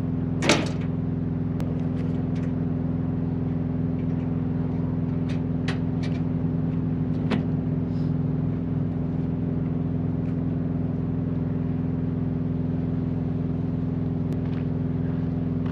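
Semi truck's diesel engine idling steadily, with a few sharp clicks and knocks of gear being handled on the steel trailer deck, the loudest about half a second in.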